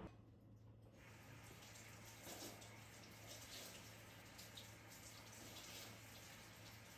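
Faint water running from a kitchen tap into a sink, starting about a second in.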